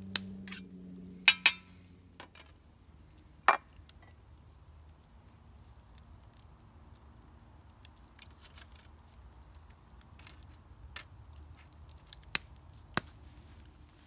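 Metal spoon clinking and knocking against a mess-kit frying pan, several sharp clinks in the first few seconds. After that comes the low crackle of a wood campfire, with a few sharp pops near the end.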